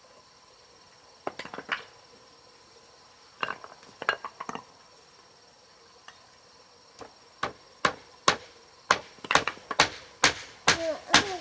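Hammer striking a frame of wooden poles: two short clusters of knocks, then from about seven seconds in a run of sharp blows, roughly two a second and getting louder.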